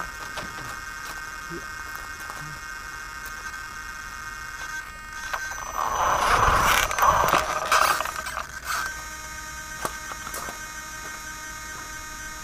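Small remote-control inspection rover driving over gravel, with a loud stretch of scraping and motor noise from about six to eight and a half seconds in. A steady high whine runs underneath.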